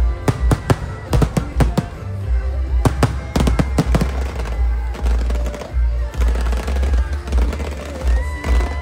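Rapid volleys of fireworks bangs over loud music with a heavy bass beat; the bangs come thick and fast for about four seconds, then thin out while the music continues.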